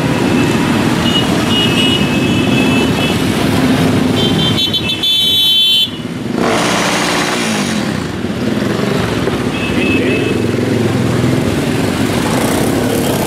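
A procession of many motorcycles riding past, engines running with some revving, and horns sounding twice: about a second in and again around the middle.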